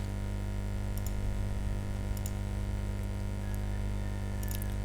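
A few scattered computer mouse clicks over a steady electrical mains hum.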